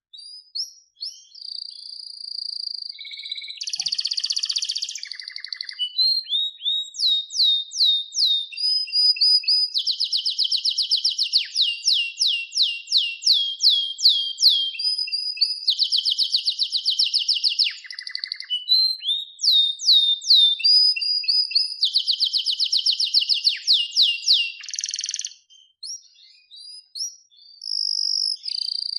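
Canary singing a long, high song: fast trills of repeated falling notes alternating with held whistled notes, with a brief pause near the end.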